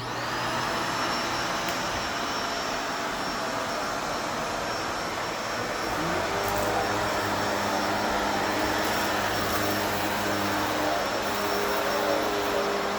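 A loud, steady machine running, a motor-like drone with a hissing rush over it, its tone shifting about six seconds in.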